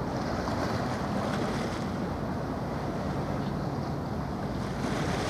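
Waterside ambience: steady wind on the microphone and waves on the water, with a faint low hum of distant ship engines.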